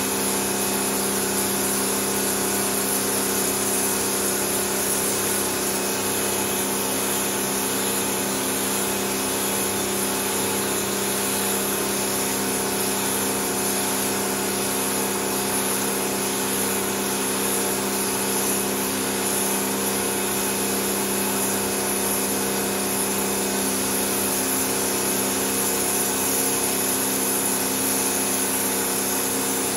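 Pressure washer running steadily: a constant motor-and-pump hum under the hiss of the water jet spraying onto a soaked pile rug.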